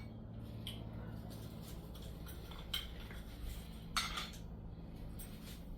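Hard shelf parts knocking and clinking against each other as they are handled, with a couple of sharp clinks about a third and two-thirds of the way in, over a low steady hum.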